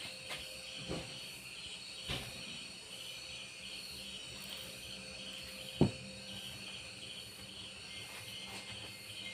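Insects chirping in a steady pulsing trill, a few pulses a second. A few soft knocks sound in the first couple of seconds, and one sharp knock about six seconds in is the loudest sound.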